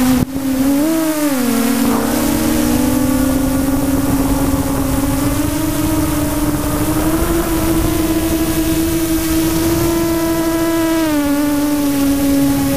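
Onboard sound of an FPV radio-controlled aircraft's motor and propellers: a steady tone whose pitch rises and falls with the throttle, over wind rushing past the microphone. There is a brief dropout right at the start, and the pitch dips about eleven seconds in.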